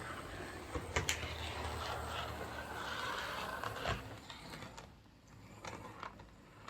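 Hornby OO gauge Class A1 model locomotive running slowly on track: a small motor and gear whir with a few sharp clicks, falling much quieter about four seconds in. The uneven running is the sign of a poor electrical pickup from the wheels.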